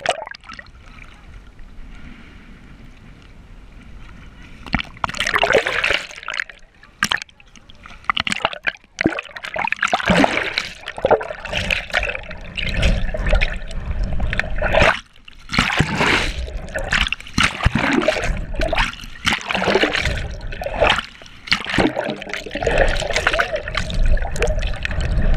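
Seawater sloshing and bubbling, heard muffled from below the surface, with irregular splashes and rushes. It is quieter at first and grows busier from about five seconds in.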